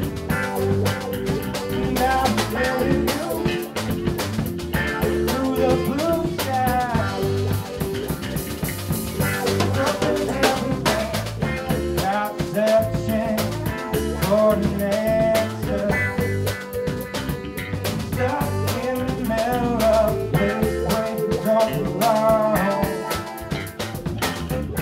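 Live rock band playing: drum kit, electric bass, electric guitar and saxophone, with a melody line moving over a steady drum beat. A cymbal is held ringing from about seven to nine seconds in.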